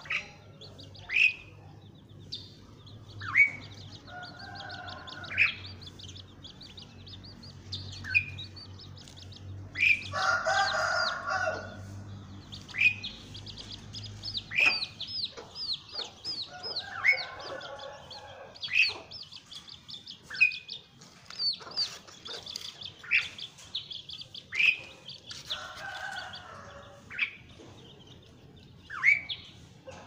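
Asian pied starling (jalak suren) calling: sharp downslurred whistles and quick runs of chattering notes, broken every several seconds by harsher, grating phrases of a second or two, the loudest about ten seconds in.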